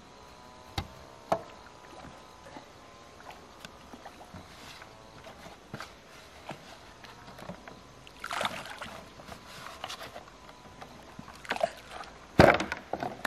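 Scattered knocks on a bamboo platform, then water sloshing as a plastic basin is dipped and swirled in a pond, with a loud thud near the end as the basin is thrown down onto the grass.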